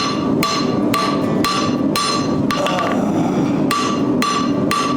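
Forging hammer striking steel on an anvil, about two blows a second, each with a short metallic ring, with a pause of about a second midway. The blows are drawing out the end of the bar thin so that it can be scrolled.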